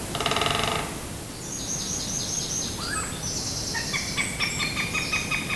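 Wild woodland birds calling and singing. A short buzzy rattle comes first, then a run of high repeated notes, then a rhythmic series of repeated notes at about four a second.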